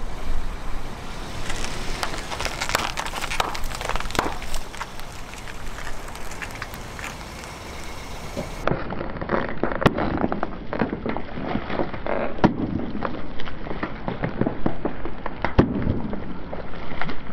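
Car tyre rolling over plastic spout pouches of liquid soap, a dense crackling and popping as the pouches are crushed and burst. After about nine seconds the crunching goes on duller and lower, with a couple of sharp cracks.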